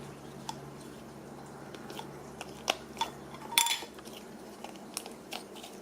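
Light clicks and taps of small plastic slime tubs being handled and opened, with one louder clatter about three and a half seconds in. A faint low hum stops at the same moment.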